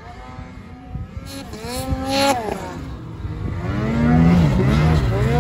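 Ski-Doo 850 Turbo two-stroke snowmobile with an RPM chambered titanium muffler, riding hard in deep powder. The engine revs up and drops off sharply about two seconds in, then comes up loudest near the end as the sled passes close by.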